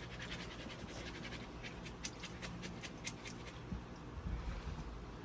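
Diced raw potatoes being rinsed and drained, with faint, irregular small clicks of the pieces knocking against the container.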